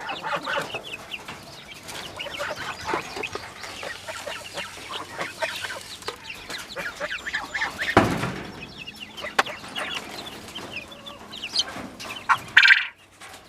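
Quail and young chickens chirping and clucking in their pen, with a thump about eight seconds in. Near the end a quail gives its loud crowing call, a strange sound for such a small bird.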